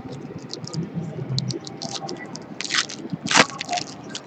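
Crinkling and rustling as hockey trading cards and their packaging are handled, in a run of short crackles with two louder crinkles about two and a half and three and a half seconds in.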